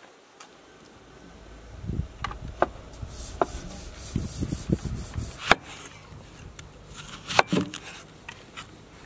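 A cat rolling and squirming on gravelly dirt: fur and grit scraping and crunching, with scattered sharp clicks. Near the end, a knife cuts through an onion against a wooden board.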